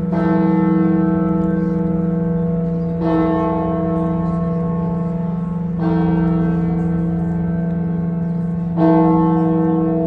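Cathedral church bell struck four times, about three seconds apart. Each stroke rings out slowly over a deep hum that carries on beneath.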